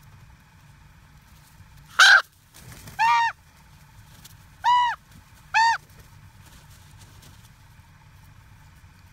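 Common ravens calling: four short, hoarse calls, each rising then falling in pitch, the first about two seconds in being the loudest.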